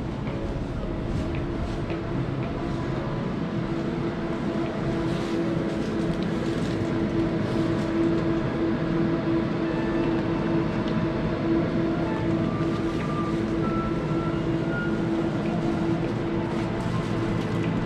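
Steady mechanical hum of a convenience store's refrigerated display cases and ventilation, with a few faint short high tones in the last third.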